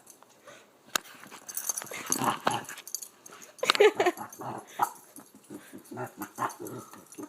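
Two dogs playing together, making short, funny vocal noises in quick, irregular bursts.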